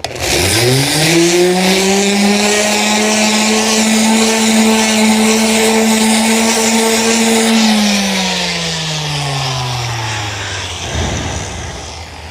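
Electric orbital sander switched on, spinning up within about a second and running at a steady pitch. About eight seconds in it is switched off and its pitch slides down for a few seconds as it coasts to a stop.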